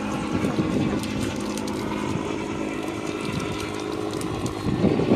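An engine drones steadily at an even pitch, with a brief louder patch near the end.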